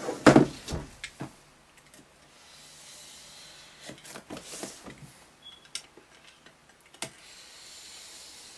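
Utility knife blade scraping and slitting along the wrapping of a cardboard laptop box, a soft scratchy hiss that comes and goes, with scattered clicks. A few knocks in the first second as the box is turned and set down on the table.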